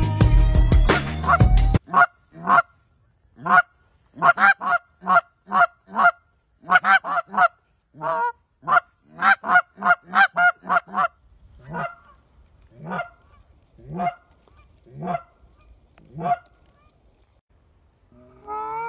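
Music ends about two seconds in. Then a goose call is blown in a quick run of short, loud Canada goose honks, which thin out to fainter honks about one a second near the end.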